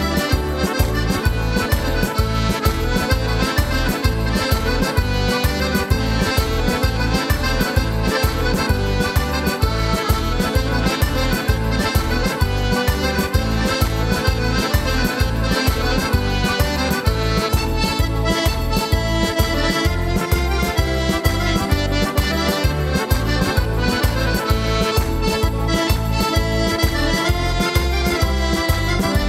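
Two accordions playing a tarantella together, a lively tune over a steady low beat of about three pulses a second.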